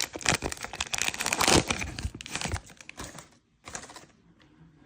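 Crinkling plastic wrapper of a football trading card fat pack being handled and torn open, busy for about three seconds, then dying down to faint rustles.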